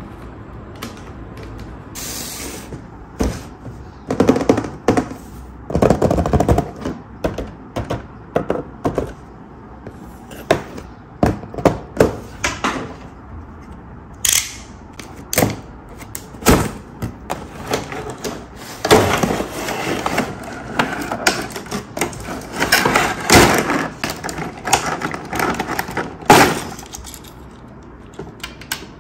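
Hard plastic toy track pieces and packaging being handled: irregular clicks and knocks, with stretches of rustling.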